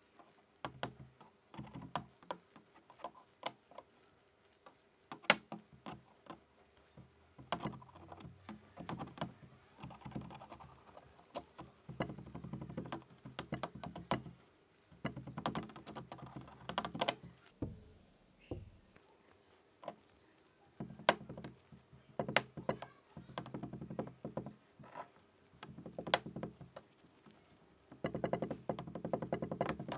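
Kinetic sand being cut and pressed: soft crumbly crunching as it is sliced, broken by many irregular sharp taps and clicks.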